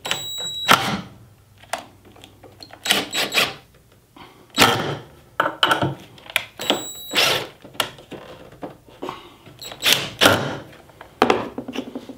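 Cordless driver running screws into the vise's mounting block in short bursts, a brief motor whine and a clattering run of thunks each time. The screws are being adjusted to bring the vise level.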